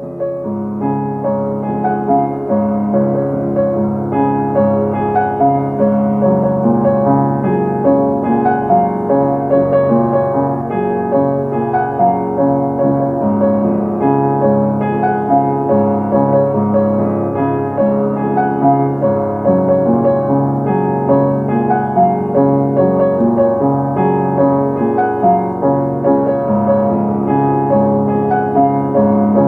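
Solo piano music: a gentle piece with a steady, unbroken run of notes in the middle and low register.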